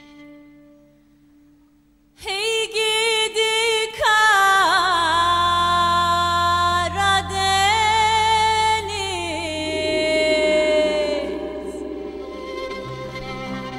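Background music: after a quiet opening, a slow melody with wavering, sliding held notes enters about two seconds in over a steady low drone.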